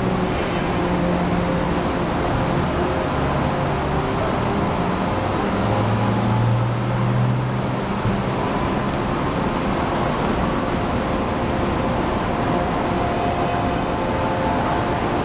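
City street traffic: a steady wash of engines and tyres, with a louder low engine hum about six to eight seconds in.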